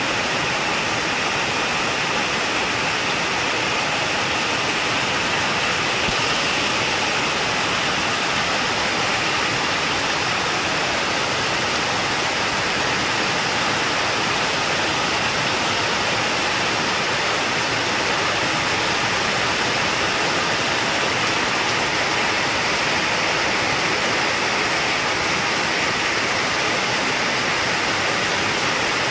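Heavy rain pouring down steadily, a dense even hiss that never lets up.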